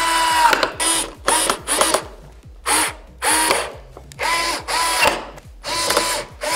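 Cordless drill-driver driving screws to fasten a TV's metal stand legs, its motor whining in short bursts that start and stop about eight or nine times as the screws are run in.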